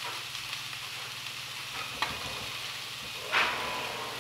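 Yellowfin tuna steaks and greens sizzling in frying pans on the stove, with a steady low hum underneath. A brief louder hiss comes about three seconds in.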